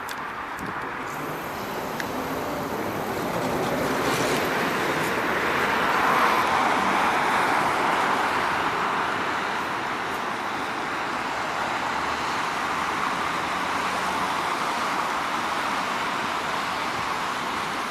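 LVS-86K articulated tram moving off and running along the track, its rolling noise of wheels on rails growing louder over the first six seconds as it gathers speed, then holding steady.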